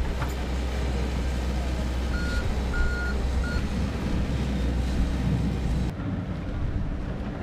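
Diesel engine of a Komatsu tracked excavator running steadily, with three short high beeps of a machine's warning alarm a little after two seconds in. The low engine drone drops away near the end.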